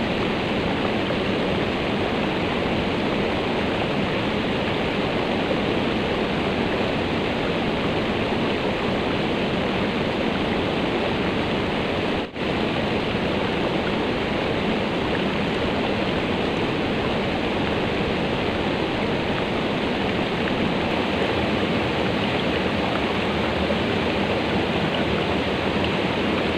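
Rushing river water, a steady noisy flow, with a brief dropout a little under halfway through.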